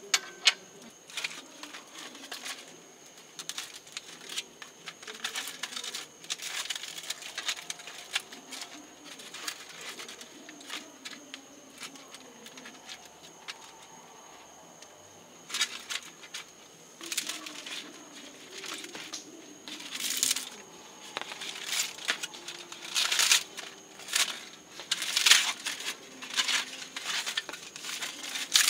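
Aluminium foil packets being unfolded and crumpled by hand, giving irregular crinkling and rustling that gets busier and louder in the second half. There is a sharp knock right at the start.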